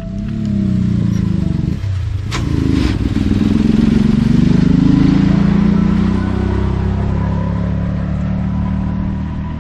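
Motor vehicle engine running close by, its pitch rising and falling, loudest midway and fading near the end, with one sharp click about two seconds in.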